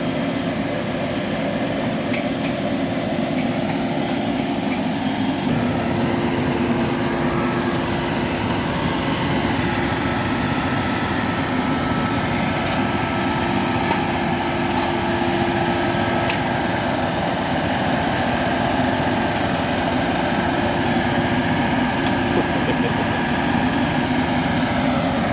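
Heavy engine running steadily with a constant drone and a few steady tones, its low rumble growing louder about five seconds in.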